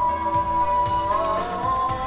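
Music: a single melodic line of long held notes that bend in ornamented turns about a second in, over a low accompaniment.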